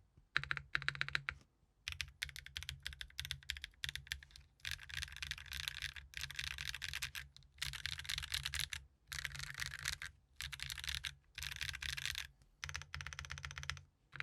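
Mode Tomorrow tactile switches in a GEON F1-8X keyboard with an aluminium plate and ABS double-shot keycaps, pressed key by key in quick runs of rapid keystrokes about a second long, with short pauses between the runs. The sound is low-pitched and solid.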